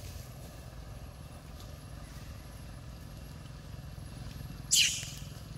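A baby macaque gives one short, shrill squeal that falls steeply in pitch, near the end. Under it runs a steady low rumble like an idling engine.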